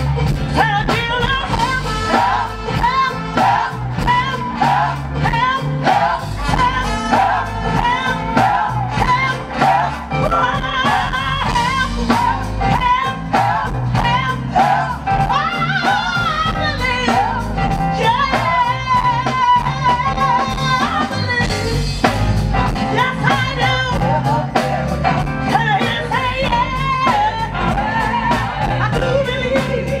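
Live gospel music: a female lead singer and a choir singing over an amplified band with a steady beat.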